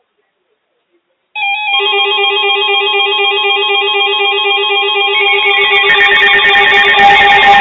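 Several weather-alert radio receivers sounding their electronic alarms together, layered beeping and warbling tones that start abruptly about a second and a half in. More tones fill in partway through and a crackle joins near the end, the receivers set off by an incoming flash flood warning.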